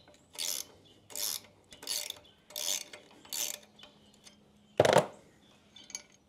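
A 13 mm ratcheting wrench clicking through five short back-strokes, about 0.7 s apart, while loosening the kickstand pivot's locking nut, then one louder metal clack about five seconds in.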